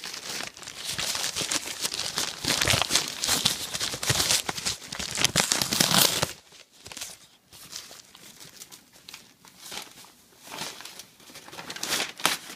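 Gift wrapping paper being torn and crumpled in the hands, loud dense crinkling for about six seconds, then softer scattered rustles with a brief louder crumple near the end.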